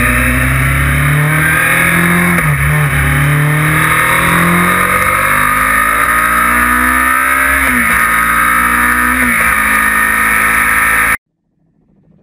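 Kawasaki motorcycle engine accelerating at road speed, its pitch climbing and then dropping at each of three gear changes. The sound cuts off suddenly near the end.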